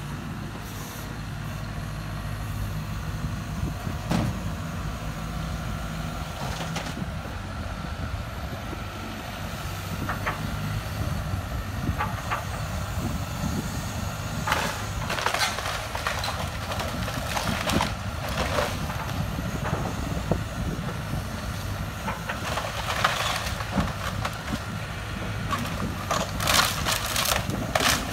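Hyundai 140LC-9A excavator's diesel engine running steadily, with intermittent cracking and crunching of wood and roofing as the bucket and thumb break into a shed roof, more frequent and louder in the second half.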